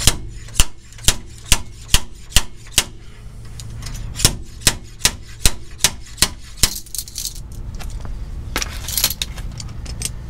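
Slide hammer clanking as it drives a very tight rear axle bearing out of a Ford 8.8 axle housing. There are two runs of about seven sharp metal strikes, a little over two a second, with a short pause between them.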